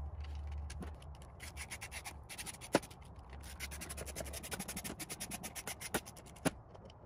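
Hand ratchet clicking rapidly as a bolt is run in on the bottom plate of a winch control box, with a few sharper clicks of metal parts against the box.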